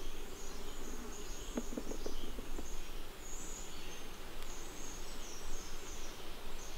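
Quiet woodland ambience with faint, high-pitched calls that come and go throughout. A few soft crackles fall about one and a half to two and a half seconds in.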